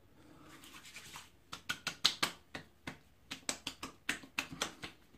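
Hands applying witch hazel to a freshly shaved face: a brief soft rubbing of wet palms, then a quick irregular run of sharp pats and slaps on the cheeks from about a second and a half in.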